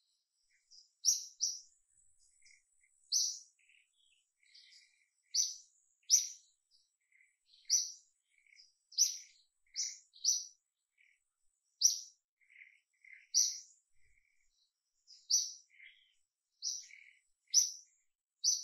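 A small bird chirping: short, sharp high notes, roughly one a second at irregular spacing, with fainter, lower chirps in between.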